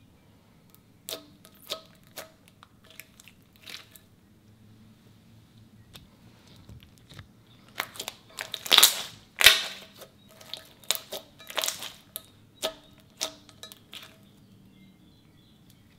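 Clear slime being pressed and stretched by hand, giving sharp sticky clicks and pops. A few scattered pops early on, a dense run of loud crackling pops a little past the middle, then more scattered clicks.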